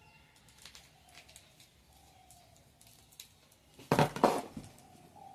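Handling noises while unboxing a flexible tripod: scattered light clicks and ticks, then a short, loud clatter of knocks and rattling about four seconds in.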